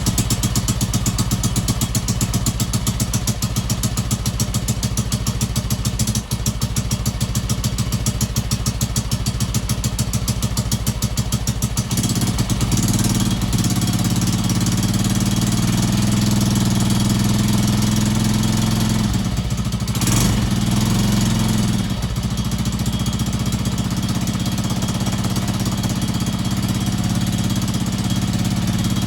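Honda TLR200's single-cylinder four-stroke engine running on a newly fitted aftermarket CDI: at first a slow idle with distinct, even firing beats, then about twelve seconds in the revs rise to a smoother, faster run, dipping briefly and picking up again around twenty seconds in.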